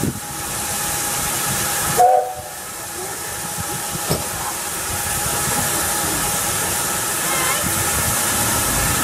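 Standing NG G16 Beyer-Garratt steam locomotive hissing steam steadily, with one short whistle toot about two seconds in, after which the hiss drops briefly and then builds again.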